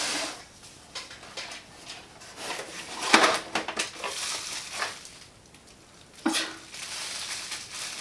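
A cardboard box being handled and its flaps opened, then bubble wrap rustling and crinkling as it is pulled from around the packed item, with irregular crackles and taps.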